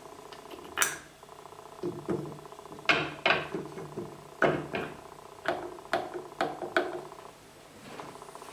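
A dozen or so sharp knocks and clicks of a wooden cue shaft and its plastic joint protector being handled against an electric drill's chuck and a wooden jig, over a steady low hum.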